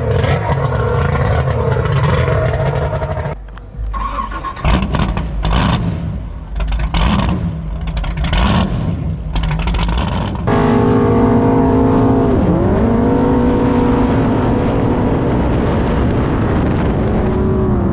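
High-performance speedboat engines running hard over a string of short cuts. In the last several seconds one engine holds a steady high pitch, dips briefly and climbs back.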